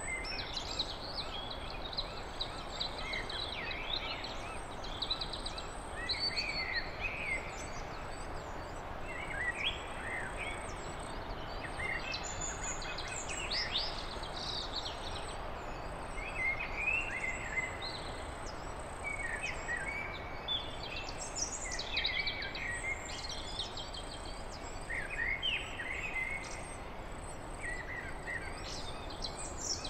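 Several songbirds chirping and singing in short, scattered calls over a steady background hiss.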